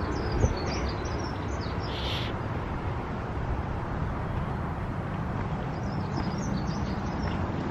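Small garden birds chirping in short high twittering phrases, twice, over a steady rushing background noise.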